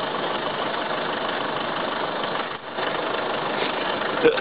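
Jeep Liberty CRD's 2.8-litre four-cylinder turbodiesel running at low revs as the Jeep crawls over a rock ledge. The engine sound is steady and dips briefly about halfway through.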